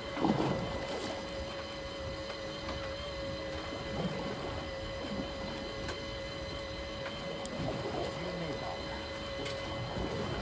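Electric fishing reel's motor whining steadily as it winds in line against the load of a hooked fish on a bent rod, with a few brief rushes of noise about the start, four seconds in and eight seconds in.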